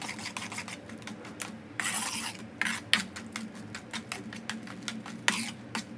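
A spoon scraping and tapping around a pot as thick palmyra-fruit pulp batter with flour and grated coconut is stirred, in quick short strokes with a few longer scrapes, over a faint steady hum.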